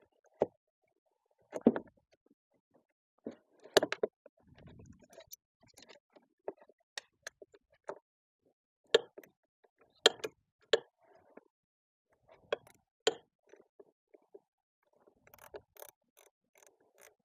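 Hand ratchet with a 5/16 socket clicking and clinking in short, irregular bursts while the screws holding the heater blower motor are backed out, with scattered knocks of metal tools and parts.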